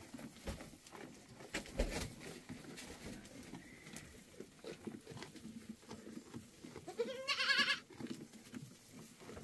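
A goat bleats once, about seven seconds in: a single wavering cry lasting under a second. Scattered knocks and rustling are heard around it.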